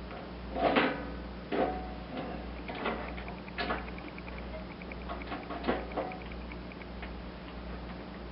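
Hand tools working sheet-metal tin: several sharp metallic clanks with a short ring, and a quick run of small ticks in the middle.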